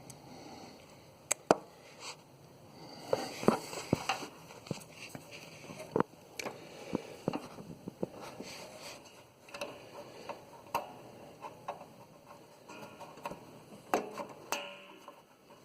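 Scattered light clicks and knocks with bits of rustling, the sound of hands working on mower parts and handling the camera. There is no motor running.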